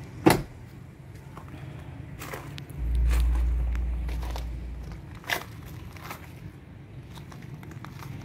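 Camera-handling knocks and footsteps as a person gets out of a car and walks round it on grass: a sharp click near the start, a low rumble for about two seconds from about three seconds in, and a few lighter clicks after.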